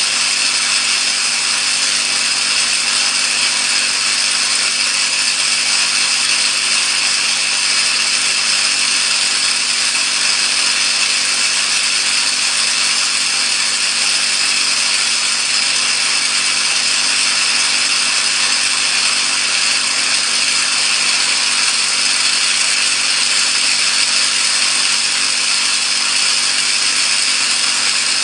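Electric arc discharge from an electrode in salted water, sizzling as a steady, harsh hiss that stays at one level throughout.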